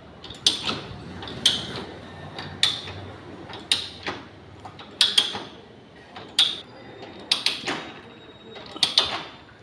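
Metal hand tools being handled and worked: a series of sharp metallic clicks and knocks, each with a brief ring, about one a second.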